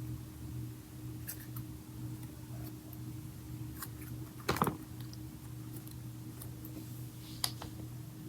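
Slime being mixed, stretched and swirled by hand, giving scattered small clicks and pops, with one louder squelch about halfway through.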